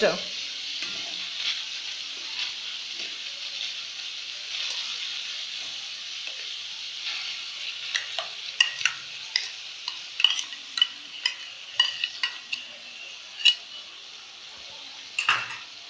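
Oil with red chilli powder and ginger-garlic paste sizzling steadily in a kadai. From about halfway, a metal spoon clicks and scrapes repeatedly as onion-tomato paste is spooned from a steel bowl into the pan.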